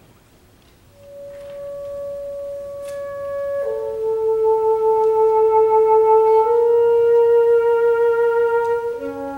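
Alto saxophone and orchestra playing slow, long held notes. The first note enters about a second in, and a lower note joins a few seconds later as the sound swells.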